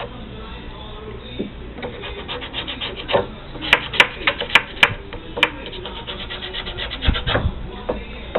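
A hand scraper pushed across wood in quick repeated strokes, scraping off old varnish softened by paint remover. A few sharp clicks come around the middle, and there is a dull knock near the end.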